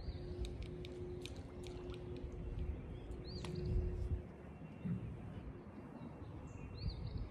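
Birds chirping and calling over a low outdoor rumble, with two arched high notes about three and a half seconds in and near the end. A faint steady hum runs under the first half.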